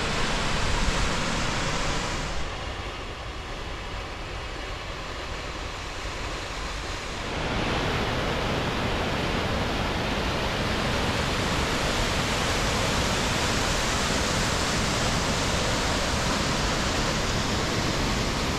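Steady rush of a waterfall on the McCloud River, the water's roar filling every pitch. It drops to a softer, thinner rush for about five seconds, starting about two seconds in, then returns full and steady.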